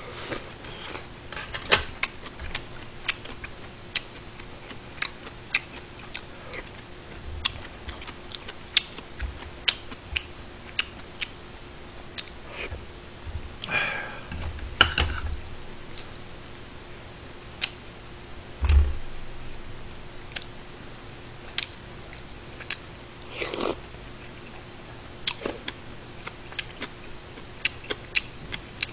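Eating sounds: metal chopsticks and a spoon clicking and tapping against a pot of kimchi stew and a steel rice bowl, many short clicks, with chewing and a couple of longer slurps of broth. One dull knock a little past the middle.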